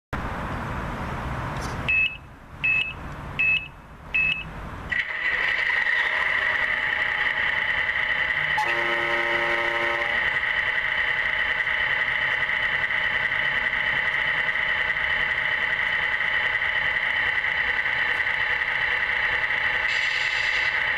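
Electronics of radio-controlled model semi-trucks: four short beeps about two seconds in, then a steady electronic engine hum that runs on, with a horn sounding for about a second and a half around the middle.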